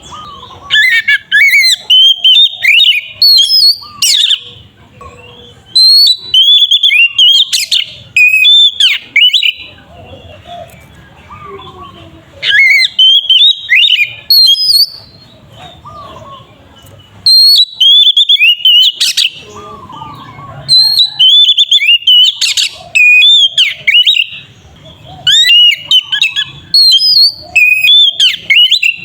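Oriental magpie-robin (kacer) singing loud, varied whistled phrases full of fast sliding notes, in bursts of a few seconds with short pauses between them.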